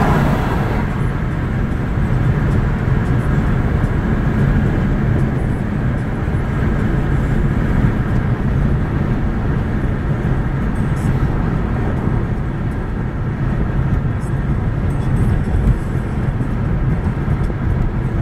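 Steady road and engine noise of a car driving at highway speed, heard inside the cabin: a constant low rumble of tyres and engine.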